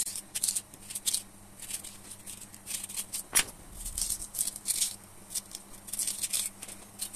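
Knife blade scraping and cutting out the centre of a peeled raw potato, a quick run of short, crisp scrapes. One sharp click comes about three and a half seconds in.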